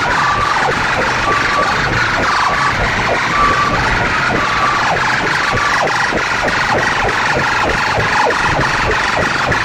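Loud, distorted electronic music blasting from a stack of horn loudspeakers, with a fast beat and a short high tone that repeats about once a second.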